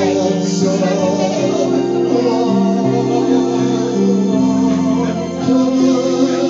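Karaoke backing track playing long held chords, with a man singing into a handheld microphone.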